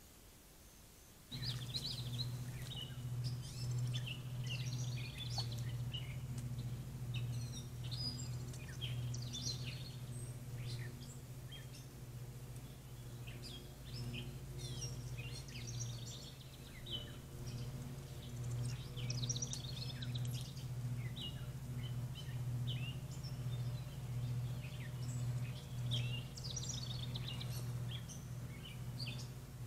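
Several wild songbirds singing and calling, many short, varied chirps and trills overlapping, starting about a second in, over a steady low hum.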